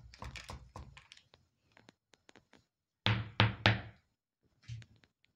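A run of light knocks and clicks, then three loud thuds in quick succession about three seconds in, and one more knock near the end.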